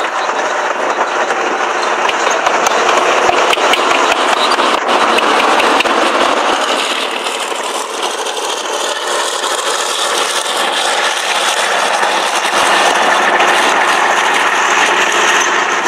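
Soviet T-34 tank driving past close by, its V-2 V12 diesel engine running under the continuous clatter of its steel tracks.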